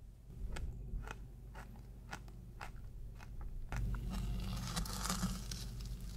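Metal spoon crunching and scraping into icy, granular strawberry-lemon sorbet packed in a lemon shell. It starts as a string of separate sharp crackles about twice a second, then from a little past halfway turns into a denser, continuous crunching scrape.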